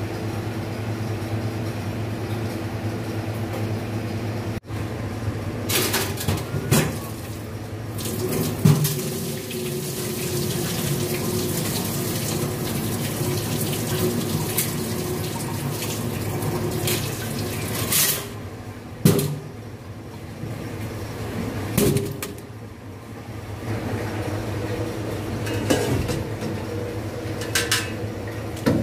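Tap water running into a sink over cutlery, with metal spoons and forks clattering against each other a handful of times. A steady low hum runs underneath.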